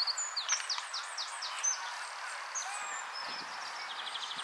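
Small songbirds chirping, with rapid downward-sweeping notes in the first second and a fast high trill near the end, over a steady outdoor background hiss.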